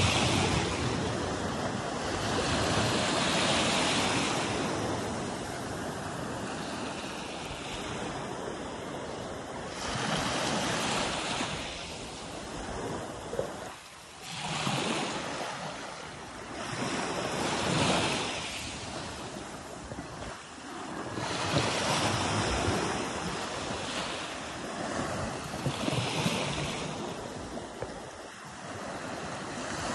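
Small sea waves washing up onto the shore and draining back. The wash swells and fades every few seconds.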